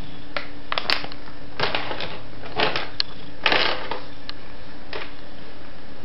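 Cat pawing at a plastic bag, making a string of short, irregular crinkles and clicks, the loudest a little past halfway, over a steady low hum.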